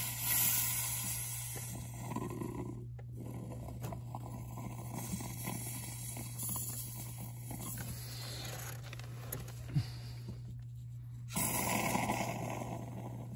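Can of Great Stuff Gap and Crack Sealer expanding foam hissing in spurts as foam is sprayed through its straw into a hole. The longest spurt is at the start, and another comes near the end.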